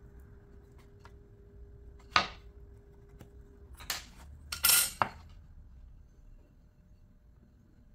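A steel ruler and pencil being handled on a wooden frame: a sharp clack about two seconds in, then a metallic clatter and scrape around four to five seconds in as the ruler is moved.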